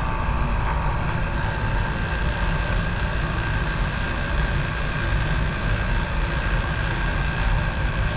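Steady low mechanical hum of running lab machinery, with a few faint steady high tones over it.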